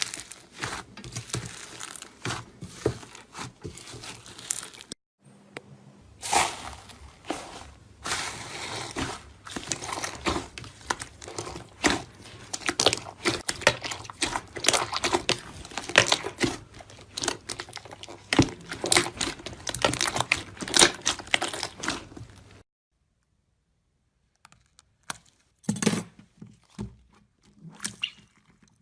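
Slime being squeezed and poked by hand, giving dense, irregular crackling and popping clicks. The sound comes in separate stretches, with a short break about five seconds in and a silent gap of about two seconds after twenty-odd seconds.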